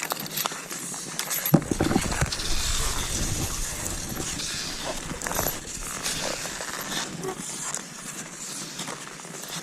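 Cross-country skis swishing and crunching over snow, with the rhythmic scrape and tap of ski poles being planted. A louder low rumble comes about a second and a half in.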